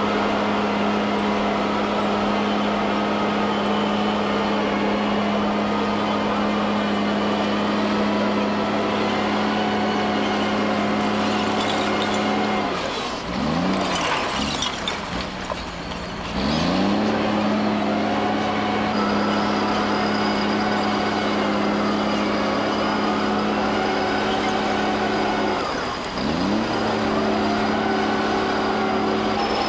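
Heavy diesel engine of a landfill bulldozer running under load. Its note sags sharply about a third of the way in, with a rough noisy stretch, and climbs back a few seconds later. It dips and recovers again briefly near the end.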